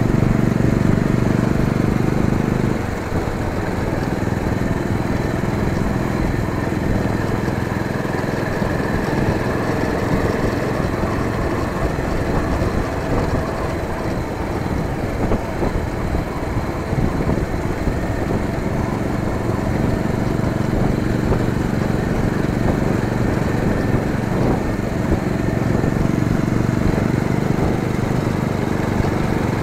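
Bajaj Pulsar 220F motorcycle engine running under way, with road and wind noise. It is a little louder for the first three seconds, then holds steady.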